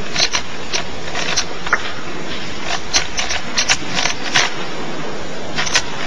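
Irregular sharp clicks and clacks, about a dozen in all and unevenly spaced, over a steady hiss of room noise.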